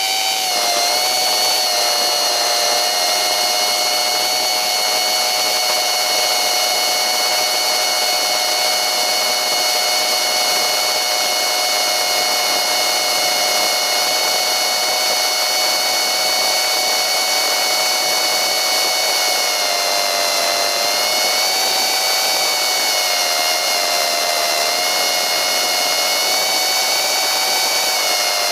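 Tiny pusher-style FPV quadcopter's motors and propellers whining steadily in flight. The pitch dips briefly about 20 seconds in and again near the end.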